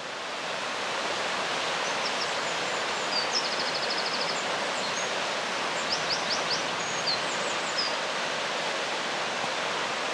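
Steady outdoor rushing noise, like flowing water, with birds chirping high above it, including a quick trill about three and a half seconds in.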